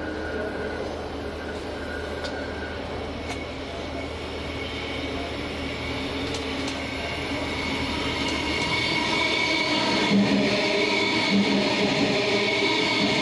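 Queensland Rail electric multiple-unit passenger train arriving and slowing at the platform. Its rumble grows steadily louder as it draws near, with a steady high whine over it.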